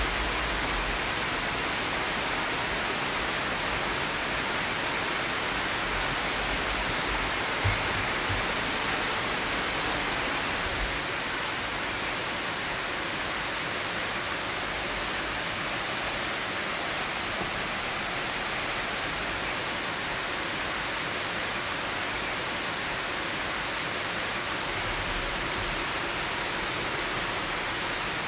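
Steady rushing of running water from a stream or small waterfall, with one brief soft knock about eight seconds in.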